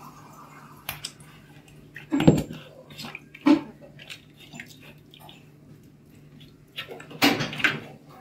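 Pieces of raw lamb being dipped and rubbed by hand in a large aluminium pot of liquid spice marinade: a few short wet splashes and squelches, the loudest about two seconds in and near the end.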